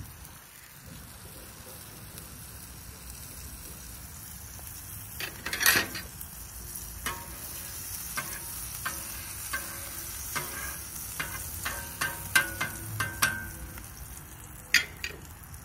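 Butter and food sizzling on an overly hot Blackstone flat-top griddle, a steady hiss. One loud knock about six seconds in, then a run of light clicks and scrapes of cooking utensils.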